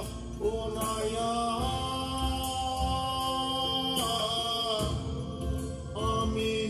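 Music with a singing voice holding long, sliding notes over a steady low accompaniment.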